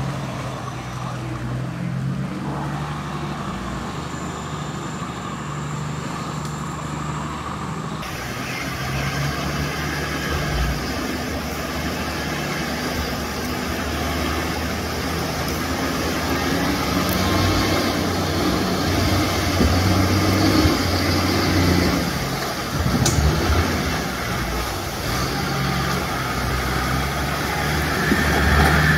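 Engine of an off-road 4x4 running steadily. The sound changes abruptly about 8 seconds in, and it grows louder and heavier from about 17 seconds in.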